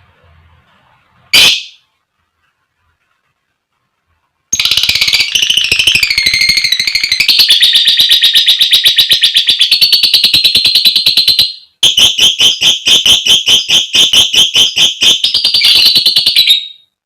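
Female lovebird giving one short call, then after a pause a long, rapid, high-pitched chattering trill (ngekek) in two long runs of fast repeated notes.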